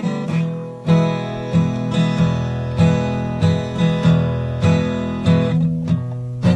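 Acoustic guitar being strummed in an even rhythm, about three strums every two seconds, the chords ringing on between strokes.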